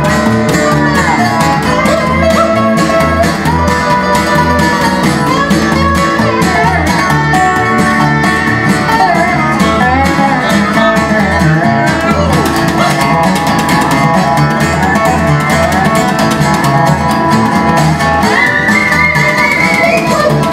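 Country band's instrumental break: a lap-played slide guitar solos with gliding, bending notes over a strummed acoustic guitar and plucked upright bass. Near the end the slide glides up to a higher note.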